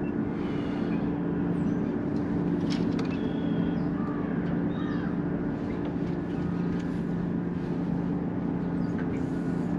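A steady low engine hum runs throughout, with a few faint short high chirps and clicks over it.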